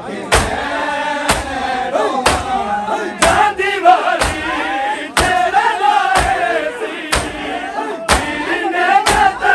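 A group of men chanting a Punjabi noha (Shia lament) together, with a sharp rhythmic thump about once a second that is typical of matam, mourners beating their chests in time with the lament.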